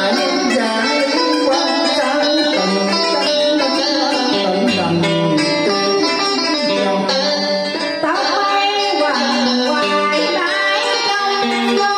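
Music led by a plucked string instrument over a backing track, with a voice singing through a microphone and PA.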